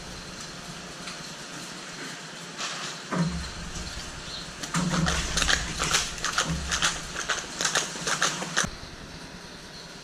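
Plastic plug trays clattering as they are handled and pressed down onto trays filled with peat-moss potting mix to make the seed holes: a few dull thumps, then a quick run of clicks and knocks from about five seconds in until about nine seconds.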